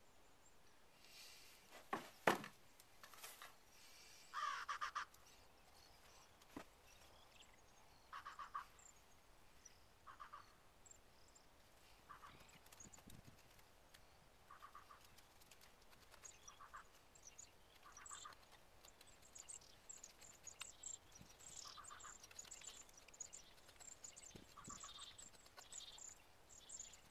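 A sharp knock about two seconds in, as a hatchet is set into a wooden chopping block, then a bird calling in short calls about every two seconds. Over the last several seconds a carving knife shaves a trembling aspen spoon blank with fine, scratchy strokes.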